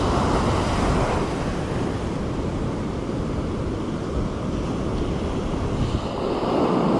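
Ocean surf breaking and washing up a sandy beach: a steady rush of waves that swells near the start and again near the end.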